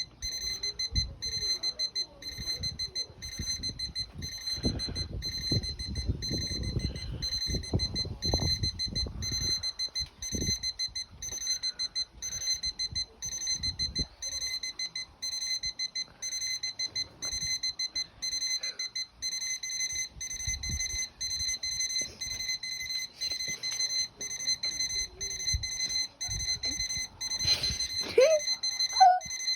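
Electronic alarm clock beeping: one high-pitched tone pulsing on and off in a steady, rapid rhythm. Low thumps and rumbling sound under it from about four to ten seconds in, and a brief sliding sound comes near the end.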